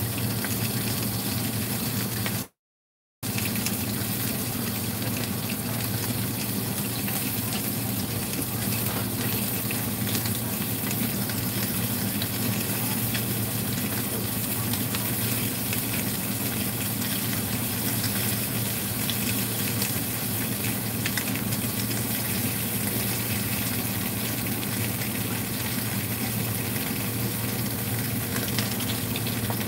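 Fish pieces sizzling steadily in a hot nonstick wok, over a low steady hum. The sound cuts out completely for under a second about two and a half seconds in.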